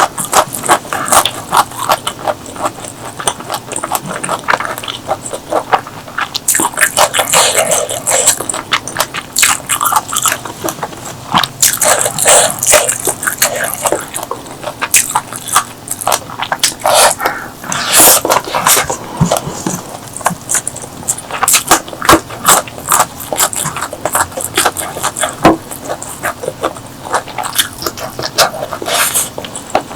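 Close-miked eating: irregular crunching bites and chewing with wet mouth sounds, in a dense run of crackles with no pause longer than a moment.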